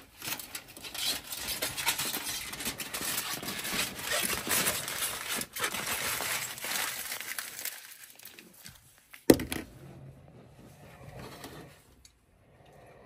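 Aluminium foil crinkling as it is peeled off a disposable foil pan, dense and crackly for about seven seconds. A single sharp knock about nine seconds in, then quieter handling.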